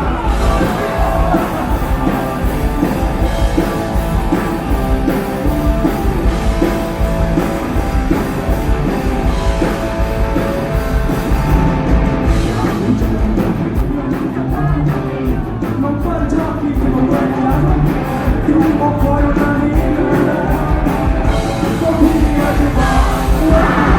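Live rock band playing with a singer, heard loud through a fan's camera microphone: drums, guitars and vocals.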